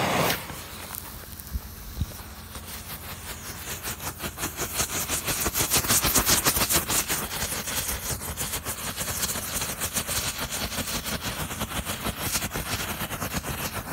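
Several strobe fireworks going off at once: a dense, rapid crackle of many small pops that builds over the first few seconds and then keeps going steadily.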